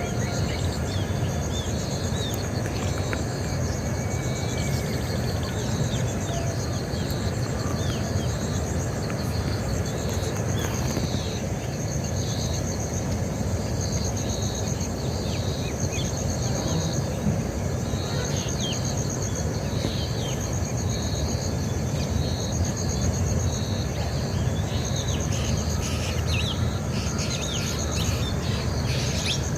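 Crickets chirping in a steady, evenly pulsed trill, with scattered short bird chirps and a constant low rumble underneath.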